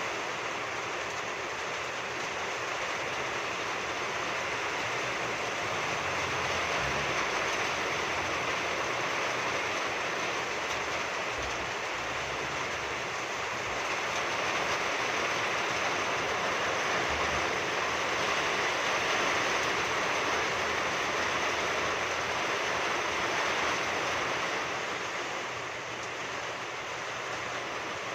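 A steady rushing noise with no distinct tones or clicks, swelling slightly through the middle and easing a little near the end.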